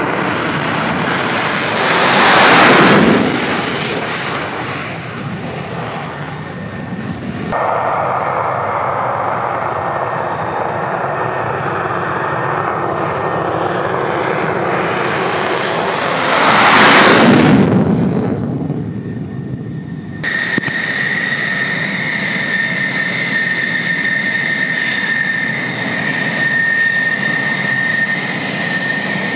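Fighter jets' engines on the runway: the F135 turbofan of a Lockheed Martin F-35A on its takeoff roll swells to a peak and fades as it passes about two and a half seconds in, then an F-16C Block 52's engine swells and fades as it passes on takeoff near the middle. From about twenty seconds in, an F-16D taxiing runs steadily with a high whine.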